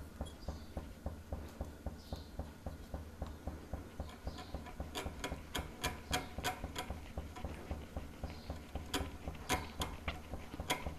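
Wire balloon whisk beating a thin batter by hand in a glass bowl to work out lumps. It swishes in a steady rhythm of about four strokes a second, with a quick run of sharp clicks of the wires against the glass about halfway through and again near the end.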